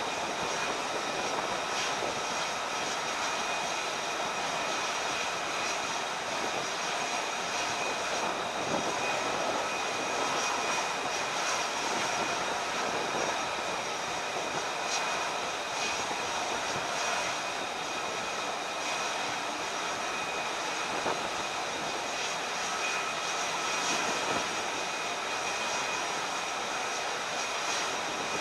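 Jet aircraft engines running: a steady rushing noise with several steady high-pitched whining tones.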